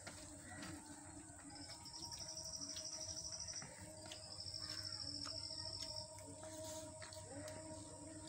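A trilling insect calls twice with a rapid, even, high-pitched trill, each about two seconds long. Faint clicks come from a hand mixing rice on a steel plate.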